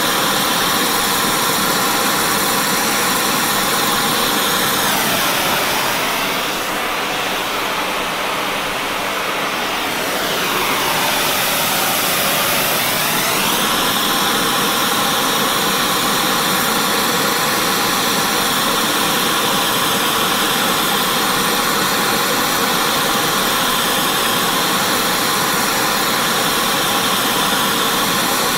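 Eutectic TeroDyn 2000 oxy-acetylene flame spray torch burning with a steady, loud hiss while it sprays metal powder onto a worn shaft bearing journal. The hiss dips slightly and its tone sweeps down and back up between about five and thirteen seconds in.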